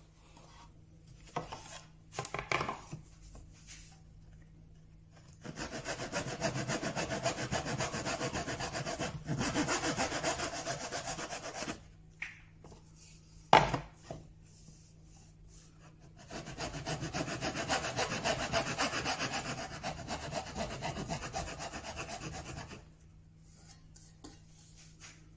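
Hand back saw cutting through the end of a glued-up wooden panel, trimming off the excess, in two spells of steady strokes of about six seconds each. Between them comes a single sharp knock, the loudest moment, with a few lighter knocks near the start.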